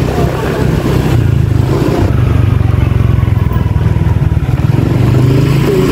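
Motorcycle engine running steadily under way, a low pulsing drone.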